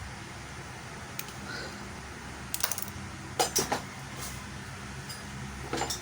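Small hard parts and tools clicking and clattering in short bursts as an electrical plug is handled and worked on, over a steady low hum.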